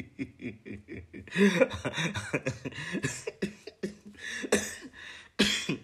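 A man laughing in quick, rhythmic bursts, about six a second at first, then breaking into a few harsh coughs near the end.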